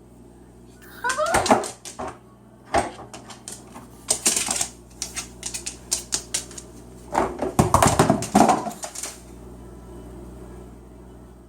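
Cockatoo's beak clicking and knocking on a hard plastic humidifier in irregular bursts, heaviest a couple of seconds before the end.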